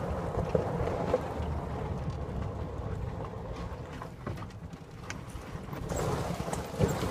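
Golf cart driving along, with wind rumbling on the microphone and scattered small knocks and rattles as it rolls over gravel.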